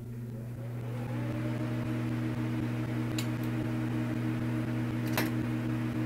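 A steady low hum with a few fixed tones, swelling over the first second, with two sharp clicks about three and five seconds in.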